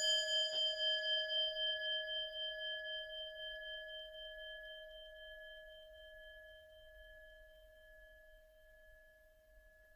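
A metal singing bowl or bell, struck once just before, ringing with a slow pulsing wobble and fading away over about eight seconds.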